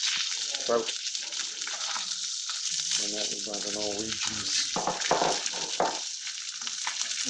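Fish sizzling steadily as it fries in a pan on a gas hob, with a metal spatula scraping and turning it in the pan about five to six seconds in.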